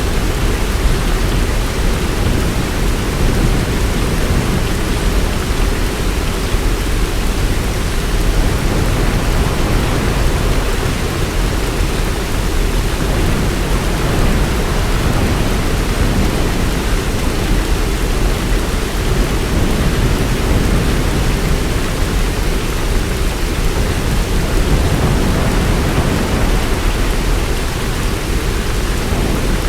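Heavy rain pouring steadily, with a deep low rumble underneath.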